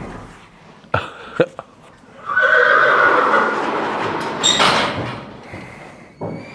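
Horse neighing: one loud call starting about two seconds in and lasting nearly three seconds, after two short knocks.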